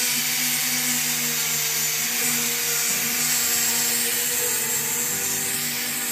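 Small electric angle grinder with a sanding disc on a backing pad, running steadily as it sands the flat wooden top of a stool. It makes a steady motor whine under a sanding hiss, and the pitch wavers slightly around the middle.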